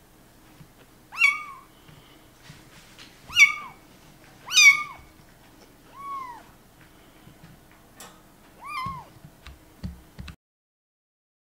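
Kitten meowing five times, each call rising and then falling in pitch, one to two seconds apart, with a few faint clicks between the last calls.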